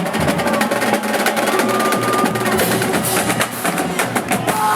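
Drum corps drumline playing fast snare-drum rolls and rhythms, with dense, rapid stick strokes.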